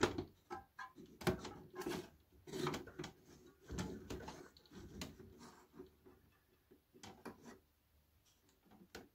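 A small plastic corner cover on a Philips record player's plinth being pried and worked loose by hand: irregular plastic scrapes and clicks, dying away after about seven seconds, with one more click near the end.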